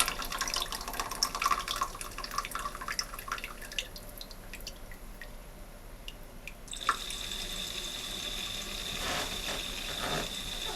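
Water splashing and trickling in an INAX DT-4573 toilet tank. It thins to a few drips, then after a click about seven seconds in, a steady hissing flow with a thin high whistle takes over.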